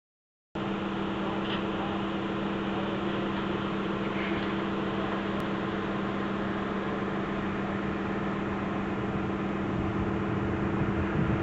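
Mobile crane's engine running steadily at constant speed, an even mechanical hum.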